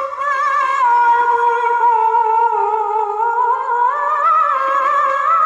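A young woman's solo voice in melodic Qur'an recitation (tilawah) through a microphone. She holds one long ornamented phrase with quavering turns; the pitch sinks through the middle and climbs again about four seconds in.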